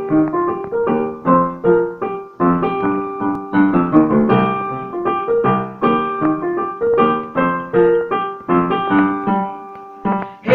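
Digital piano played with both hands: chords struck in a steady rhythm, each one ringing and fading, dying away near the end.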